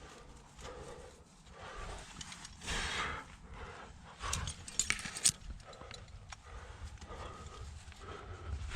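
A climber squeezing up a narrow rock chimney: irregular scraping and rustling against the rock, with a few sharp metallic clicks of climbing gear about halfway through.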